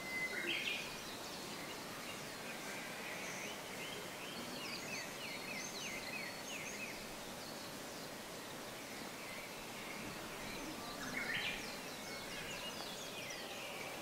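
Spring woodland ambience: several small birds singing and calling, with a louder song phrase right at the start and again about eleven seconds in and a run of quick chirps in between, over a steady soft background hiss.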